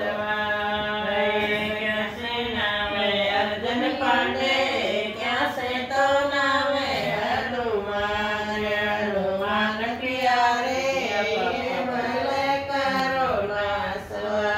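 A woman singing a devotional folk song (geet), drawing out long, gliding melodic lines.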